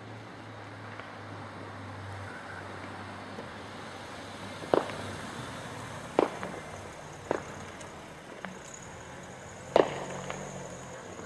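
Fireworks going off at a distance: four sharp bangs spread over about five seconds, the last the loudest, with a fainter pop between them. A low steady engine hum runs underneath.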